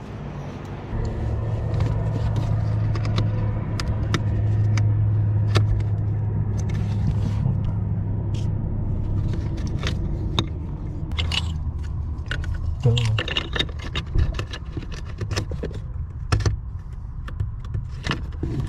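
2013 Fiat 500 being driven: a steady low engine and road drone, strongest in the first few seconds, with scattered light clicks and rattles.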